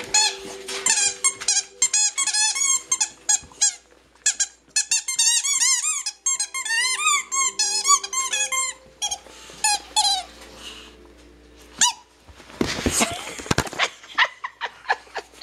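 A bulldog chewing a squeaky rubber chicken-leg toy: long runs of quick, high squeaks, each rising and falling in pitch, for most of the first nine seconds. After a pause there is a couple of seconds of noisy scuffling, then a few more squeaks near the end.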